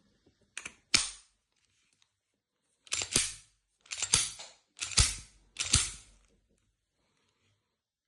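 Red dot sight snapping onto a magnetic mount with sharp metallic clacks: two quick clicks about a second in, then four sharp clacks roughly a second apart.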